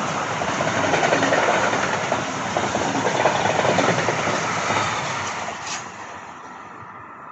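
A train passing on the line, its wheels clattering on the rails, loud for about five seconds and then fading steadily as it moves away.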